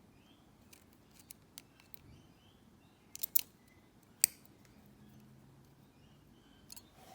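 Small metal clicks and scrapes of a shim and tools being worked into a Mako padlock to release it for disassembly, with a sharp cluster of clicks about three seconds in and one loud click a second later.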